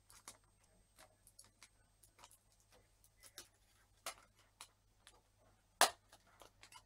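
Light scattered clicks and taps from hands handling an opened hard drive and its cables, with one sharp click nearly six seconds in, over a faint steady low hum.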